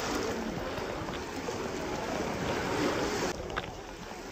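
Small waves washing onto a sandy beach, a steady wash of noise that dips a little about three seconds in.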